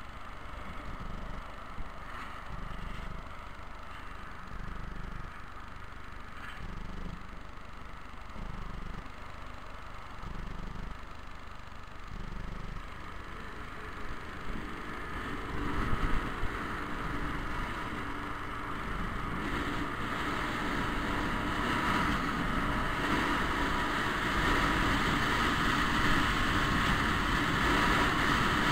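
Scooter engine idling while stopped, then pulling away about halfway through, its pitch rising as it accelerates. Wind noise on the microphone builds as speed rises.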